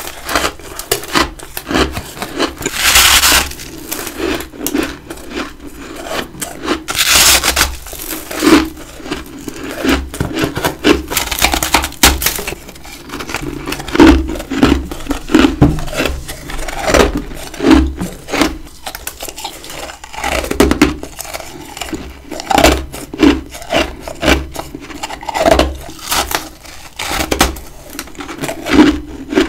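Close-miked biting and chewing of big chunks of humidifier freezer frost: a few long crunching bites, then steady crunching chews, roughly one or two a second.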